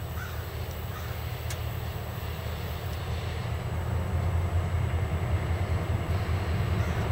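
MARC MP36PH-3C passenger locomotive's 16-cylinder EMD 645 two-stroke diesel running as the train approaches, a low steady rumble that grows louder, stepping up about four seconds in.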